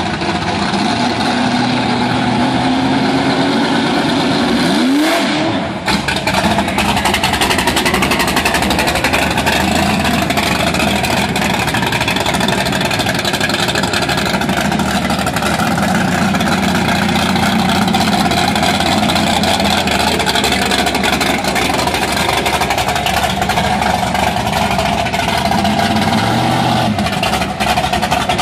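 Big-block Chevy V8 (523 cubic inches, solid-roller cam) in a 1968 Camaro drag car: it revs up sharply about five seconds in, then runs loud and hard under load as the car drives off. It revs again near the end.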